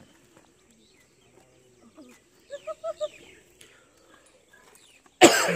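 A short, sudden, very loud blast from an Asian elephant about five seconds in, after a few faint short calls.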